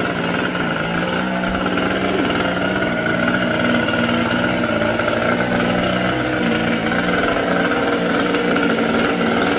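Engine running steadily at an even speed, its pitch wavering only slightly.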